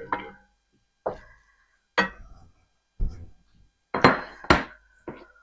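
Sharp knocks on a metal cooking pot, about one a second and two close together near the end, each with a short ring: drained black beans being tapped out of their container into the soup pot.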